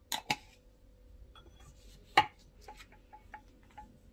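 Kitchen utensils and dishes clinking while pancake batter is prepared: two sharp clinks at the start, a louder one about two seconds in, then several light ticks.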